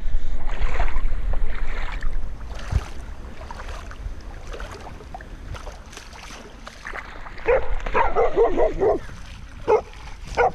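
Feet wading and splashing through shallow river water over a loud low rumble at first. A dog then barks in a quick run of short barks past the middle, and twice more near the end.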